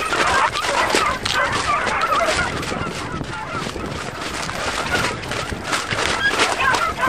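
A pack of beagles in full cry, many hounds baying and yelping over one another as they hunt a scent line, with no pause.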